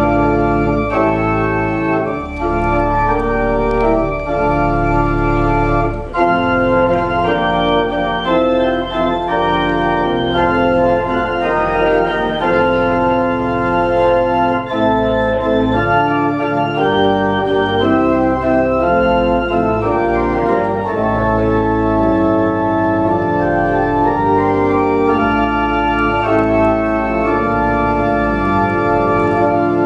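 Church organ playing full, sustained chords over held deep bass notes, the chords changing every second or so.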